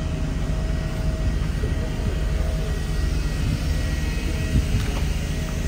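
Sweeper truck's engine idling with a steady low drone.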